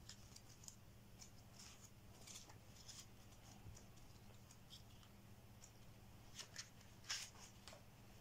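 Near silence with faint, scattered crisp rustles and light ticks of paper pages as a guidebook is leafed through, the loudest about seven seconds in, over a steady low hum.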